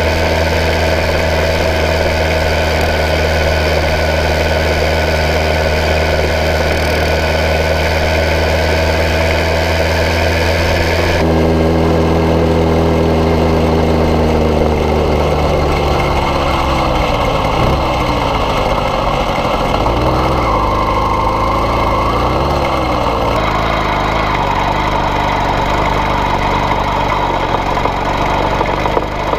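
Single-cylinder air-cooled engine of a 1901 Indian Camelback replica motorcycle running on the move, heard up close from a camera mounted on the bike. The note is steady at first; after an abrupt change about eleven seconds in, it falls, then wavers up and down, and near the end it holds steady again.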